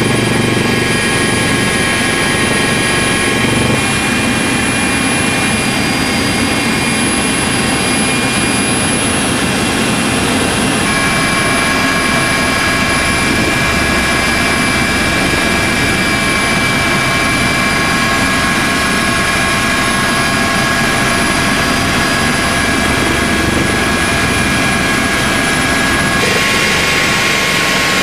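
Coast Guard HH-65 Dolphin helicopter heard from inside the cabin in flight: steady engine and rotor noise with several high whining tones over it. The whine shifts slightly in pitch a few times.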